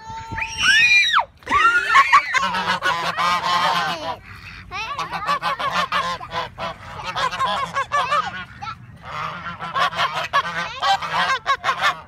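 Several domestic white geese honking over and over in dense, overlapping calls, with a short lull about four seconds in.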